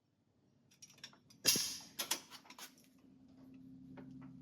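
Bolt being tightened with a torque wrench toward about 50 foot-pounds: a series of mechanical clicks and knocks, the loudest about a second and a half in, followed by a low steady hum.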